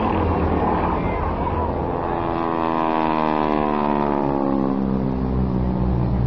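Aircraft making a low pass, its engine noise sweeping steadily down in pitch as it goes by.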